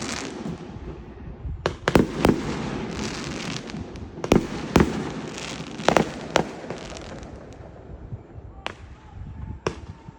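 Fireworks going off: a string of sharp bangs over continuous crackling, the bangs coming thick in the first seven seconds and thinning out near the end.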